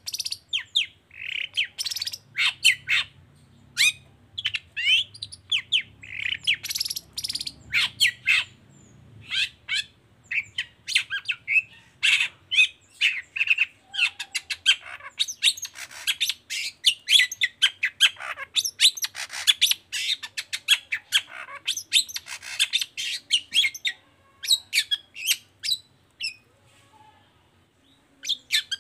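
Long-tailed shrike (cendet) singing in full voice: a fast, dense run of harsh chirps and squawky notes with short gaps, going quiet for a couple of seconds near the end.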